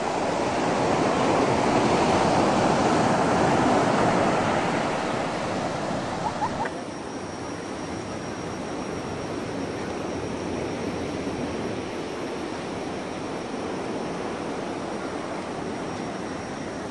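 Ocean surf washing on the beach: a wave swells louder over the first few seconds, then eases into a steadier wash.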